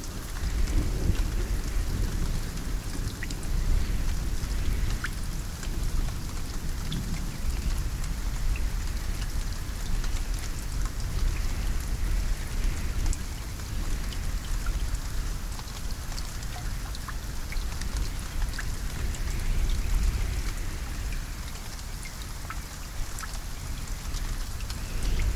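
Steady rain falling, with individual drops ticking on a surface, over a low rumble of thunder.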